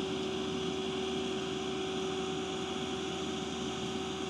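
Tractor-drawn bush hog (rotary cutter) running steadily while mowing tall grass: an even mechanical drone with a constant whine.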